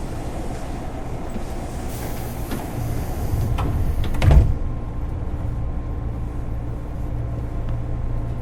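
Passenger doors of a 205-series train car sliding shut: a rising air hiss ending in a single loud thump about four seconds in, over the steady low hum of the car standing at the platform.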